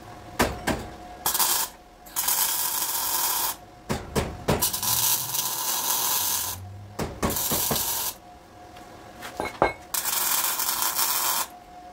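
Spray hissing in five bursts of about one to two seconds each, each starting and stopping sharply, with sharp metallic clicks and clinks between the bursts.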